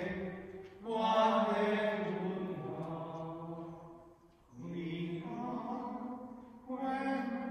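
A single voice singing a slow, chant-like hymn at the close of Mass, in long held phrases broken by brief pauses for breath.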